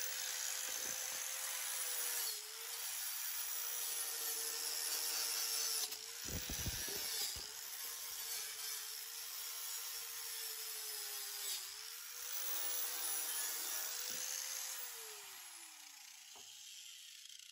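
Angle grinder fitted with a wire brush, running and scrubbing rust and scale off steel angle iron. Its steady motor whine dips slightly when the brush is pressed in. About 15 seconds in it is switched off and winds down with a falling whine.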